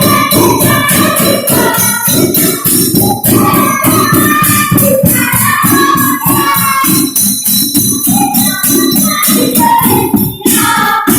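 Improvised percussion music played on everyday household objects: a fast, steady beat of about four to five strikes a second, with a melody running over it.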